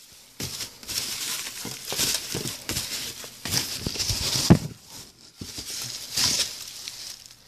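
Hands rummaging through shredded paper packing in a cardboard box, an irregular rustling and crinkling, with a sharp knock about four and a half seconds in.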